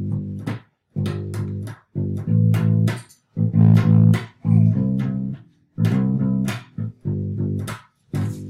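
Electric bass guitar played fingerstyle, a more elaborate bass line in the key of G: short phrases of plucked notes, each phrase stopped with a brief silence before the next.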